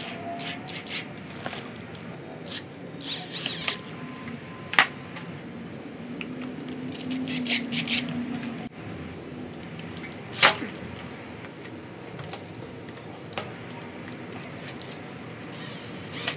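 Cordless drill running slowly as it pre-drills through a metal wall-mount bracket and wooden spacer on a PVC pipe, the bit squeaking against the metal. Two sharp clicks, about five and ten seconds in.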